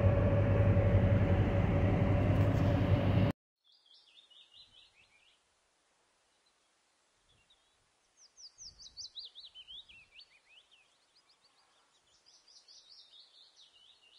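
Steady engine and road noise inside the cab of a 2007 Ford F-450 with a 6.8 L Triton V10, cruising at about 60 mph and 2,000 rpm. It cuts off abruptly about three seconds in. Then it is quiet outdoors, with a bird singing three short phrases of quick chirps that fall in pitch.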